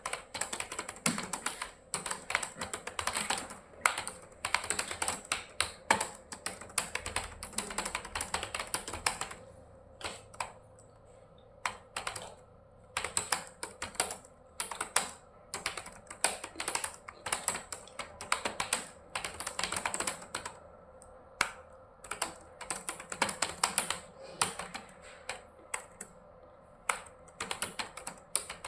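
Fast typing on a computer keyboard: dense runs of key clicks and spacebar taps, broken by a few short pauses.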